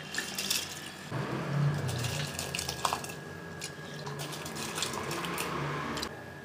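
Water splashing and sloshing as soaked rice is rubbed by hand in a steel bowl of water and dropped into a pot of water. A steady rush of water starts about a second in and cuts off suddenly near the end.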